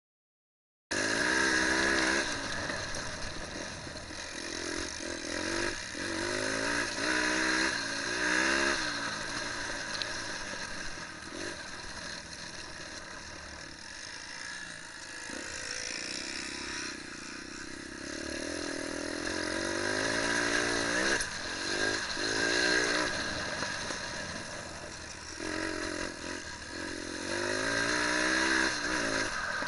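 125 cc dirt bike engine being ridden hard, its pitch climbing and dropping back over and over as the throttle opens and closes. It cuts in about a second in.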